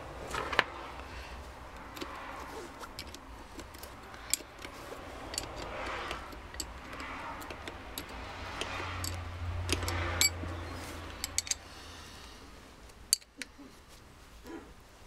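Scattered small metal clicks and clinks, with rustling, as parts and hand tools are handled while a starter motor's solenoid terminal is refitted; near the end a ring spanner is put onto the terminal nut.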